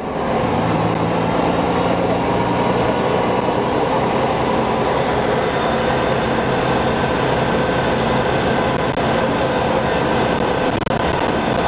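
Steady ride noise inside a moving city bus: engine hum and road rumble, with a low drone that is strongest in the first few seconds.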